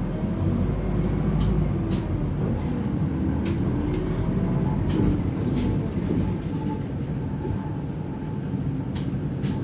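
Bus under way, heard from inside the passenger cabin: a steady engine and road rumble with a few irregular sharp clicks and rattles.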